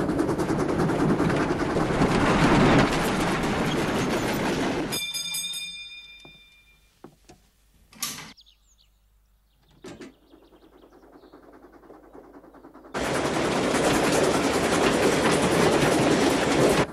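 Steam train running, a loud steady rush that cuts off about five seconds in. In the quiet that follows comes a brief fading ring and a sharp clunk of a signal-box lever about eight seconds in, with a fainter click later. The train noise returns abruptly near the end.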